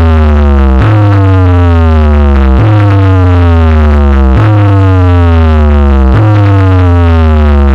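DJ sound system playing a sound-test track: a synthetic tone that sweeps downward in pitch and restarts about every two seconds, over a heavy pulsing bass.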